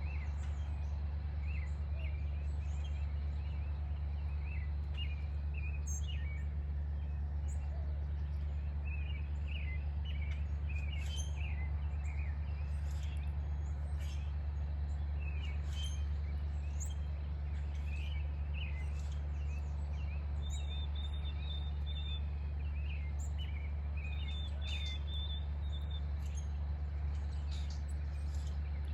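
Small birds chirping and calling in quick, scattered notes over a steady low hum, with a thin high trill twice in the second half.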